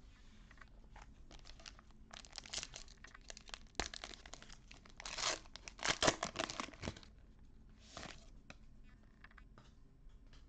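Trading card pack wrapper being torn open and crinkled, with scattered clicks of cards being handled. The rustling comes in several short spells, the loudest near the middle.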